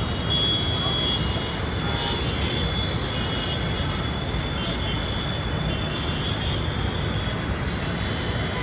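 Steady low rumble of vehicle engines and street noise, with faint higher sounds wavering above it.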